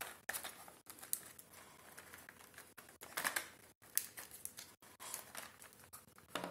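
3D-printed plastic kaleidocycle being turned by hand: its plastic links and discs give light, irregular clicks and short scrapes as it folds through its cycle, with a louder cluster of clicks about three seconds in.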